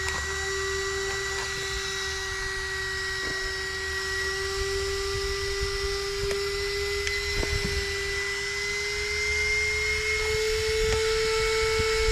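Small electric cooling fan inside the RC car running flat out, a steady high-pitched whine that edges slightly higher in pitch in the second half, going nuts. A few light clicks from hands handling the car.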